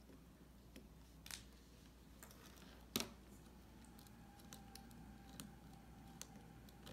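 Faint clicks and scrapes of a small screwdriver driving a tiny screw into a plastic battery-box cover, with the sharpest click about three seconds in.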